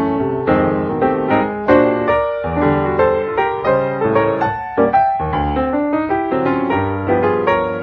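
Background piano music, a continuous run of struck notes and chords.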